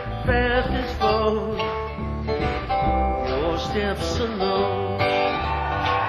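Acoustic guitar music: an instrumental passage with a wavering lead melody line over strummed chords and a steady bass.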